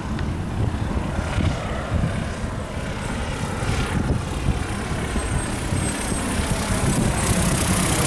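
Cessna 172's single piston engine and propeller running at climb power after a touch-and-go, a steady drone that grows louder as the plane comes low overhead.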